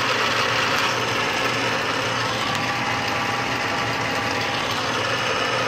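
1977 Hardinge HLV-H toolroom lathe running with its spindle turning: a steady mechanical whir over a low hum, with a faint high whine joining about a second and a half in.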